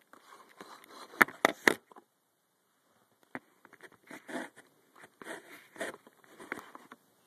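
Scuffling and handling noises as a dog is held and dosed with cough syrup: a quick run of sharp knocks about a second in, then a pause and a spell of scattered scraping and rustling.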